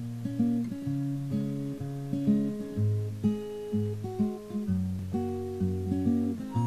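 Background music: an acoustic guitar picking a melody over bass notes, with a steady beat of about two notes a second.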